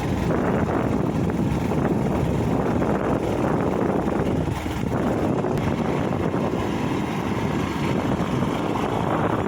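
Steady low rumbling noise with no clear tone, even in loudness throughout.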